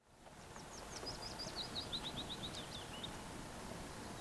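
Outdoor background fading in, with a small songbird singing a quick run of notes that step down in pitch, lasting about three seconds.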